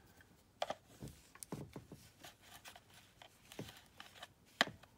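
Scattered small clicks, taps and light rustles of a plastic toy remote being handled, a few sharper clicks among them.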